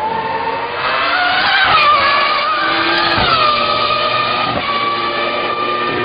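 McLaren Formula One car's 3.0-litre Mercedes V10 at full throttle, the note climbing through the revs. It drops in steps at gear changes about two and three seconds in, then holds a steady high pitch.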